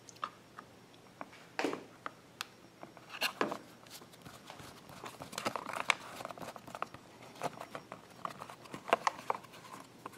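Hand screwdriver turning a screw into the recoil start rope guide on a generator's plastic panel, with irregular small clicks, taps and scrapes of metal on plastic as the screw is driven and the parts are handled.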